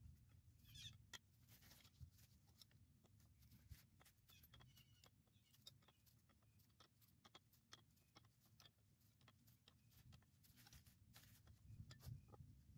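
Near silence, with faint scattered ticks and rustles that grow a little louder near the end.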